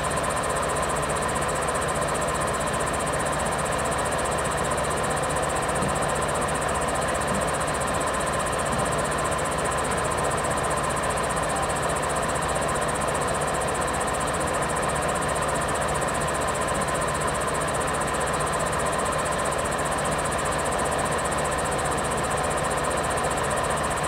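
Claas Lexion 600 combine harvester running steadily while harvesting canola: a continuous machine drone with a steady hum over an even hiss.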